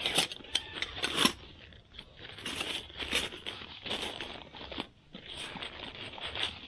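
Foil ready-meal pouch crinkling and crackling in the hands while it is torn open along the top, with many short sharp snaps of the stiff packaging.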